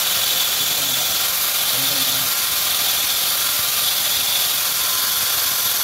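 Angle grinder mounted in a cut-off saw stand, running free at full speed with no load: a loud, steady high-pitched whine and hiss.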